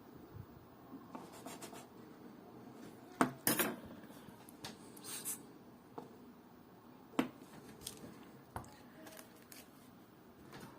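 Small metal clicks and clinks of watchmaker's tools handling watch movement parts, with a loud cluster of clicks about three seconds in and a brief scrape.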